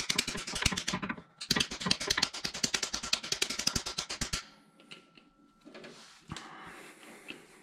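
A wooden-handled hammer taps rapidly on a 1-inch steel socket, driving a new freeze plug into the Audi AAN 2.2T engine block. The taps come in a short run, then after a brief pause a longer run of about three seconds, and stop about four and a half seconds in. They sound quite solid, a sign the plug has bottomed out and is now tapping on the engine itself.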